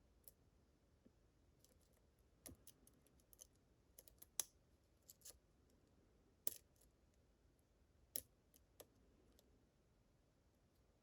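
Faint, irregular clicks of a lock pick working the pins of a Medeco-style challenge lock under tension: a dozen or so small ticks scattered unevenly, the sharpest a little before the middle and about two-thirds through.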